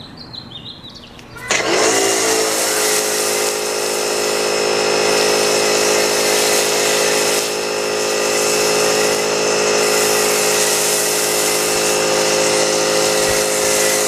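Sun Joe SPX3000 electric pressure washer starting up about a second and a half in: its motor whine rises, then settles into a steady hum with a strong hiss of spray as the MTM Hydro foam cannon lays thick foam.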